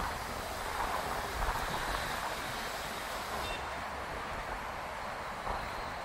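Steady seaside wind: an even rushing noise, with an uneven low rumble of wind buffeting the phone's microphone.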